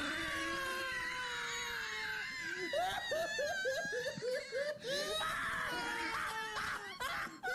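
A person laughing: a long, high, slowly falling squeal, then from about two and a half seconds in a quick run of ha-ha pulses, about four or five a second, trailing off into breathy noise.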